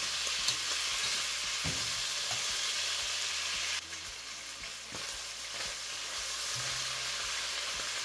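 Beef chuck pieces sizzling steadily as they sear in hot vegetable oil in a Dutch oven, with a few light knocks of the tongs turning them. The sizzle drops briefly a little under four seconds in, then comes back.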